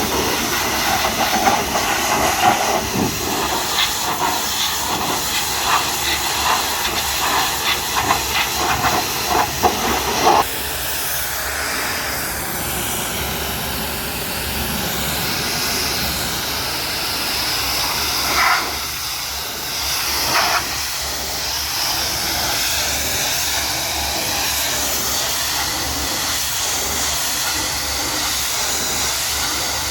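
High-pressure washer jet hissing and spattering as it blasts mud off a truck's body. About ten seconds in, the crackly spattering stops abruptly and gives way to a smoother, steady hiss, with two short louder surges later on.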